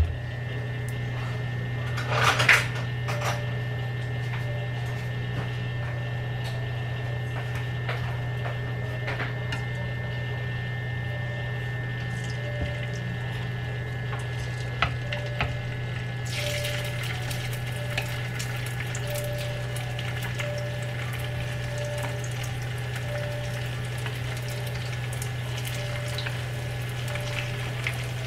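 A couple of knocks as the frying pan is handled on the cooktop, over a steady hum. From a little past halfway, hot oil sizzles steadily as cornstarch-coated fish pieces are laid in to fry.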